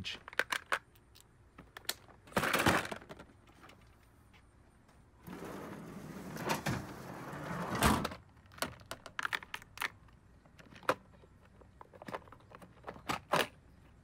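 Handling noise from clear plastic organizer cases and the small parts in them: scattered clicks, clacks and rattles. There is a short scrape about two and a half seconds in, and a longer rustling scrape from about five to eight seconds that ends in a loud clack.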